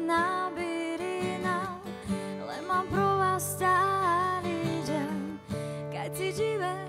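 Background music: an acoustic guitar strumming under a melody line.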